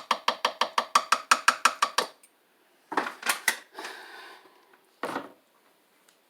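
A utensil clinking rapidly against a crock pot, about six quick ringing clinks a second for two seconds. A few more clinks and a single knock follow.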